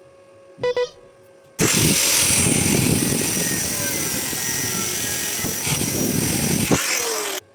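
Electric arc welding on steel reinforcing bar: the arc strikes abruptly and crackles loudly for about six seconds, then cuts off. A short sharp sound comes just before it.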